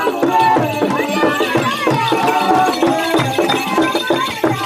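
Music with percussion and several voices singing.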